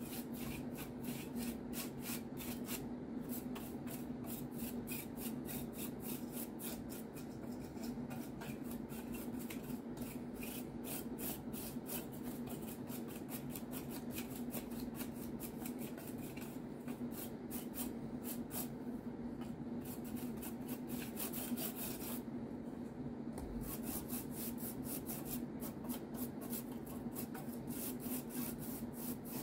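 A small cleaning brush scrubbing dust off a network switch's circuit board in quick repeated strokes, several a second, with a couple of short pauses.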